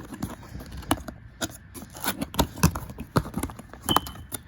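A cardboard product box being opened and its packaging handled: irregular scrapes, rustles and light knocks.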